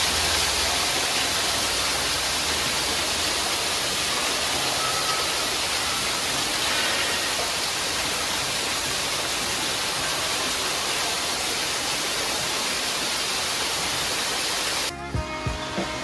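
Water pouring down from an indoor curtain waterfall close by: a steady, dense rush of splashing water. It cuts off suddenly near the end.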